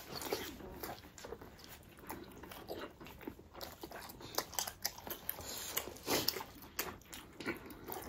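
Close-miked eating sounds: wet smacking, chewing and occasional crunching as two people eat noodles and dumplings, in many short irregular clicks.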